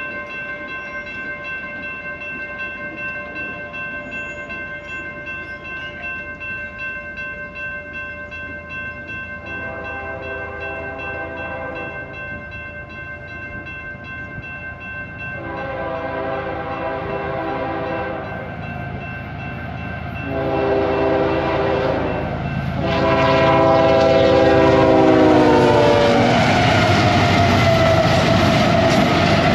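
A Union Pacific diesel locomotive's air horn sounds the grade-crossing signal (long, long, short, long) as the train approaches at speed. The pitch of the last blast falls as the locomotive passes, and the rumble of the train grows loud. A steady high ringing tone runs underneath until the horn takes over.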